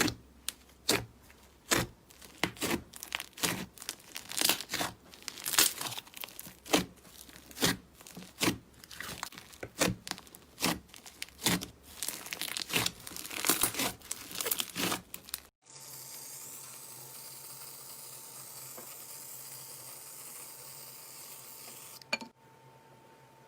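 Slime being squeezed and stretched by hand, with rapid, irregular sharp crackling pops. About two-thirds of the way in it cuts abruptly to a steady hiss with a faint high tone.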